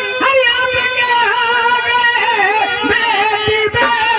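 A woman singing a melodic line with held, wavering notes through a microphone and PA, over instrumental accompaniment.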